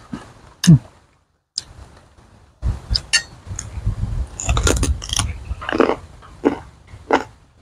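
A metal spoon clinks sharply against a steel plate while scooping, then a run of crunchy bites and chewing of raw papaya shoots and leaves close to the microphone.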